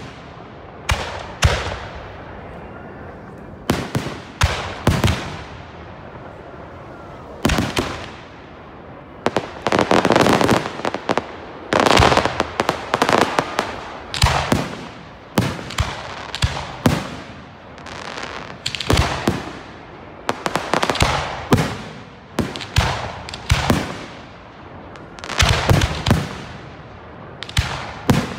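Professional aerial fireworks display: shells bursting one after another in sharp bangs, each trailing off in crackle and echo. A dense, near-continuous volley comes about ten seconds in, then single bursts and short clusters.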